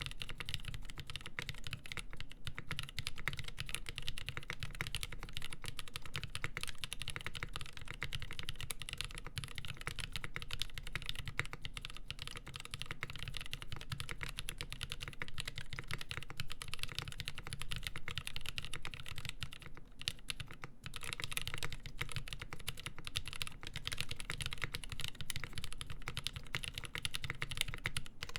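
Continuous fast typing on a custom mechanical keyboard with lubed Nolive Cream linear switches (63.5 g springs), a full polycarbonate plate and GMK Olivia doubleshot ABS keycaps: a dense stream of soft keystroke clacks, with a brief lull about twenty seconds in.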